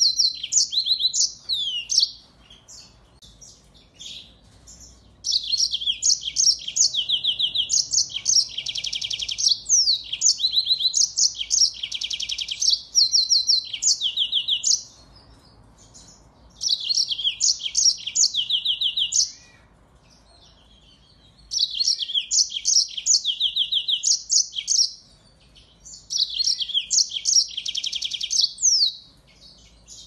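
Yellow-fronted canary (Mozambique canary) singing vigorously: rapid, high-pitched trills and quick slurred notes in song bouts of a few seconds, broken by pauses of about two seconds.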